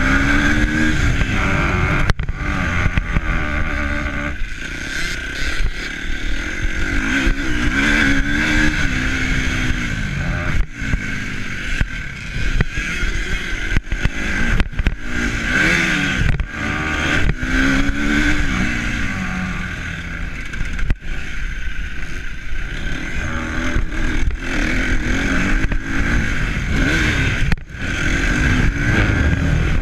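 A vehicle engine running under way, its pitch rising and falling repeatedly as it revs up and eases off, over a heavy rumble of wind on the microphone.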